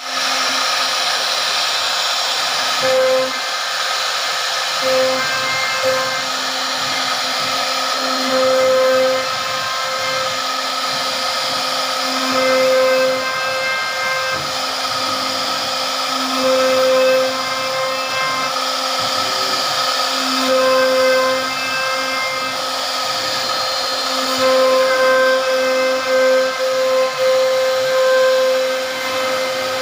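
CNC router spindle running at speed with a steady whine as its router bit cuts into a wooden panel. The cutting noise grows louder for a second or two every few seconds.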